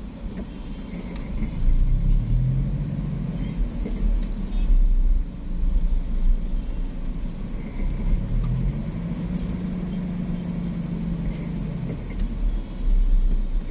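Low steady car rumble heard from inside the cabin of a car creeping forward in slow traffic. The engine note rises and holds about a second and a half in, and again around eight seconds in, as the car moves off.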